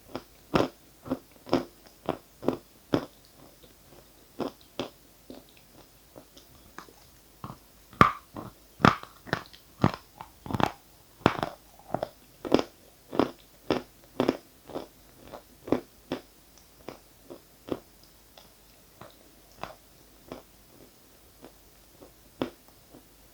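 Close-up crunching and chewing of dry edible chalk, crisp bites coming about twice a second. The bites are loudest and densest in the middle, then thin out and grow fainter toward the end.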